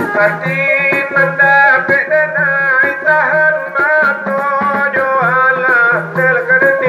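Minangkabau rabab, a bowed fiddle, playing an ornamented melody that slides and wavers, over a light regular beat, amplified through loudspeakers.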